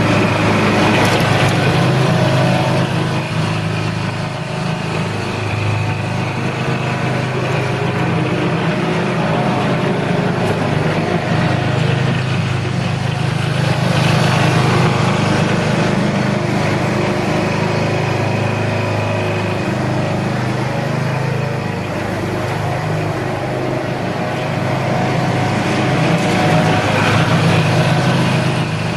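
Single-cylinder Briggs & Stratton vertical-shaft engine of a John Deere 68 riding mower running steadily, swelling slightly in loudness now and then.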